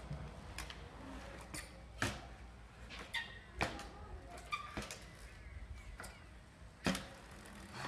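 BMX bike being ridden on concrete skatepark ramps: scattered sharp knocks and clacks of the wheels and frame against the concrete, the loudest near the end.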